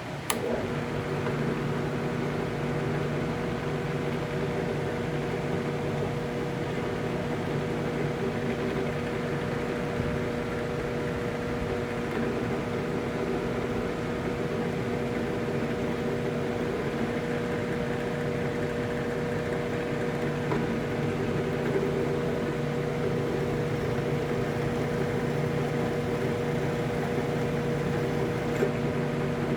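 A steady machine hum made of several constant tones over a hiss, switched on with a click just after the start.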